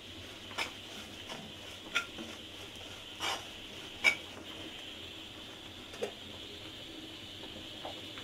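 A metal spoon stirring and scraping a thick masala fry in a metal pan, knocking against the pan about five times, the loudest about four seconds in, over a steady faint hiss.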